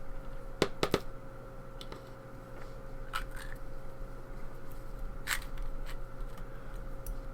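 Small metal tools and parts of a disassembled pin-tumbler lock clicking and tapping as the pins and springs are worked out: three sharp clicks close together about a second in, then a few scattered lighter clicks, over a steady faint hum.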